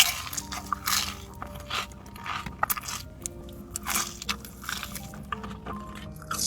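Crunching bites into fried hot chicken tenders, a string of crisp crunches while chewing, over background music.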